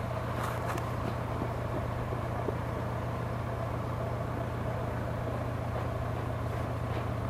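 Steady low mechanical hum with a faint steady whine above it and a few faint ticks.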